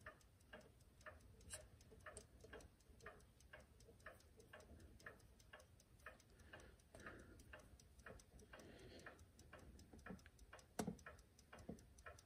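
Chelsea ship's strike clock movement ticking faintly and evenly in a quick, steady beat. A sharper click comes near the end.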